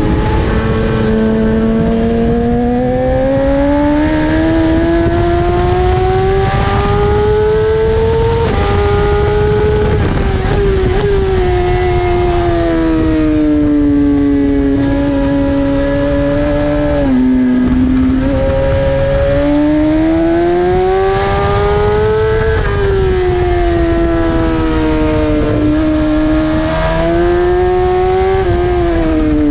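BMW S1000RR's inline-four engine at full track pace, revs climbing and falling as the bike accelerates and brakes, with several abrupt pitch steps as it changes gear.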